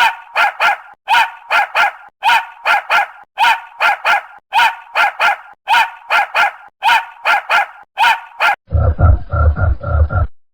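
Dog barking in quick triplets, about one set of three barks a second, evenly repeated. Near the end it gives way to a deeper, rapidly pulsing animal grunting.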